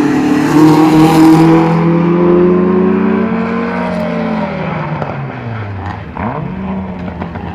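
A rally car's engine revving hard as it drives the cone course, loudest in the first couple of seconds, then dropping in pitch and fading as the car moves away.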